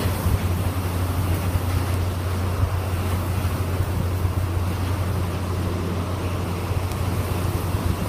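Hurricane-force wind buffeting the phone's microphone as a steady low rumble, with the hiss of wind-driven rain.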